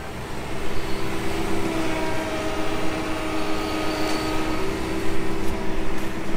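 20-ton tracked excavator's diesel engine running under load with a steady hydraulic whine while it swings a suspended septic tank; the engine picks up about half a second in and holds.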